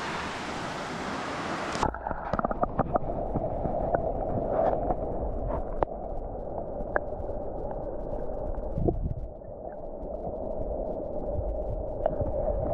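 Rushing waterfall stream, then about two seconds in the sound turns suddenly muffled and dull as the camera's microphone goes under the water: churning water heard from underwater, with scattered sharp clicks.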